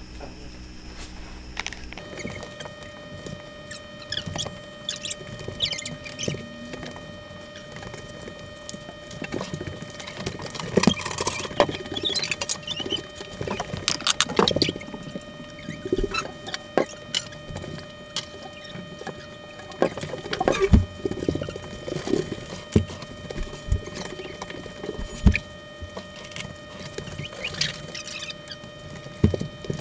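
Irregular light ticks and taps from a water-filled glass bottle heating in a frying pan on a gas burner, over a steady hum that starts about two seconds in.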